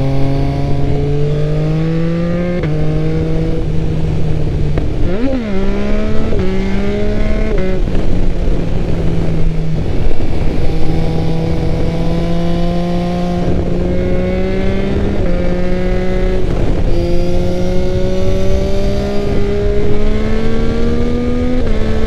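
Yamaha XSR900's three-cylinder CP3 engine with an Akrapovič exhaust, pulling away and accelerating through the gears. The pitch climbs steadily and drops back at each upshift, with a quick dip and rise in pitch about five seconds in.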